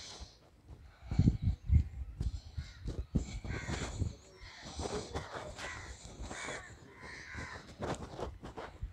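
Crows cawing, several harsh calls in a row, with a few loud low thumps about a second in.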